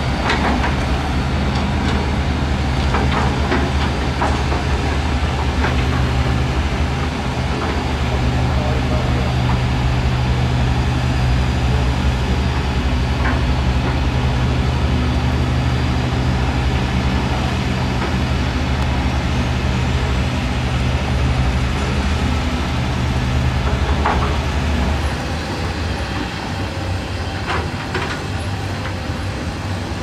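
Diesel engines of several hydraulic excavators running steadily under digging load, with a few short knocks from the machines' buckets and booms. The engine sound eases off for the last few seconds.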